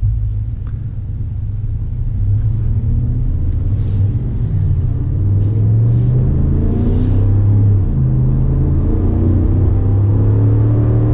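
Ram 1500's 5.7-litre eTorque V8 restarting from auto start-stop as the brake is released, then pulling away in a quicker-than-normal takeoff, heard from inside the cab. The engine note climbs in pitch through the gears and drops back at an upshift about eight seconds in.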